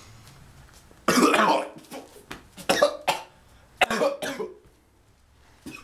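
A teenage boy coughing hard and choking on dry unsweetened cocoa powder that went down his throat and into his airway: a string of harsh coughs over about four seconds, the first the longest, then a pause.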